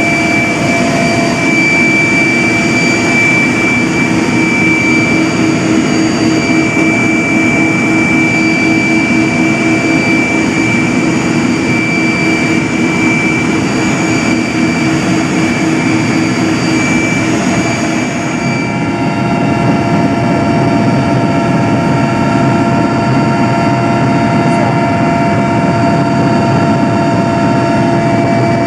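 Mil Mi-8 helicopter's twin turboshaft engines and rotor heard from inside the cockpit: a loud, steady turbine whine over a dense rumble. A little past halfway the whining tones shift to a different set.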